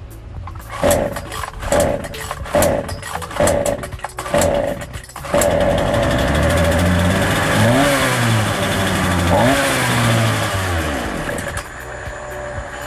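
Partner 350S two-stroke chainsaw being pull-started on the choke: several quick pulls of the starter cord, then the engine catches about five seconds in and runs unevenly, its revs rising and falling twice, before falling off near the end. It starts only with difficulty; the owner takes this for too rich a fuel mixture from the carburettor setting.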